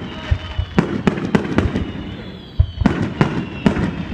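Aerial fireworks shells bursting in quick succession, many sharp bangs a few per second. There is a short lull about two and a half seconds in before the bangs resume.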